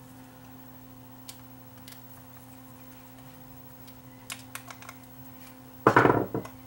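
Small scattered clicks and ticks of screws and a screwdriver on a cassette deck's steel capstan-motor bracket as the motor is screwed back on. A louder, brief sound comes near the end.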